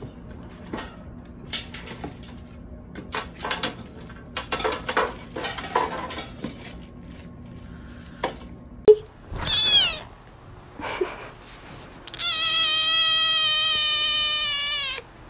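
Knocks, clicks and rustling as a kitten tumbles about in a metal tub of toys. About nine seconds in come short meows, then near the end a kitten gives a long meow held for about three seconds, the loudest sound.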